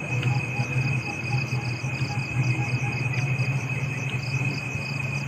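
Night insects at a forest camp: crickets chirping in a rapid, even pulse over a continuous high-pitched insect drone, with a low steady hum underneath.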